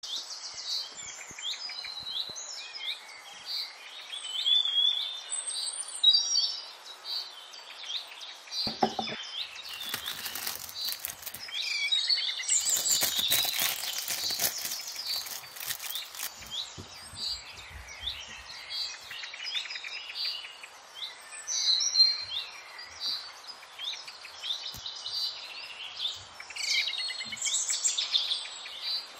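Small birds chirping and singing continuously. About nine seconds in there is a short low knock, followed by crinkling of a clear plastic cellophane bag being handled for several seconds.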